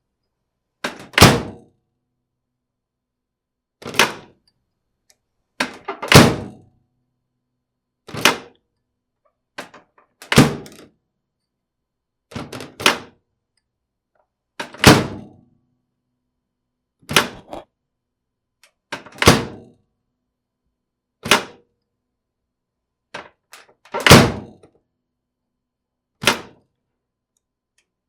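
Microwave oven door opened and shut again and again: a sharp latch click or a thunk every two seconds or so, some of them a quick double click, with silence in between.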